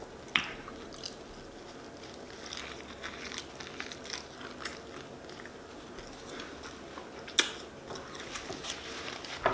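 Close-up mouth sounds of a person biting and chewing a shrimp po' boy sandwich, with a crackly, wet chewing texture and two sharp clicking bites, one just after it starts and another about three-quarters of the way through.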